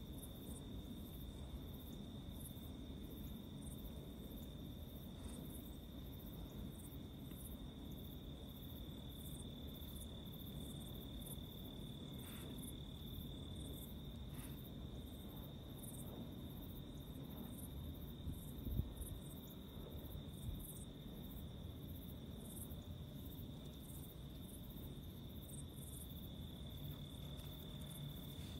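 Crickets calling at dusk: one steady, unbroken high trill on a single note, over a low rumble. A brief thump comes about two-thirds of the way through.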